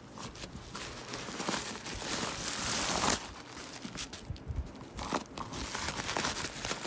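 Paper packing stuffing crinkling and rustling as it is handled and pulled out of the inside of a new handbag, loudest about three seconds in.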